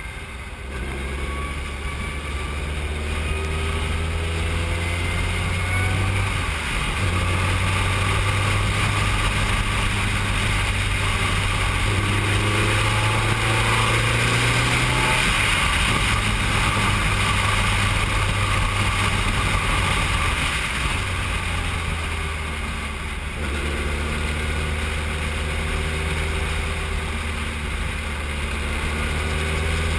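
Formula 3 single-seater's engine heard from the cockpit, pulling hard with the revs climbing and then dropping several times as it changes gear and slows for corners, over a steady rushing hiss.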